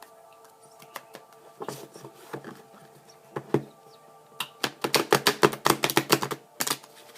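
A deck of tarot cards being shuffled: a few soft card clicks, then a quick run of crisp snapping card flicks for about two and a half seconds in the second half, over a faint steady background drone.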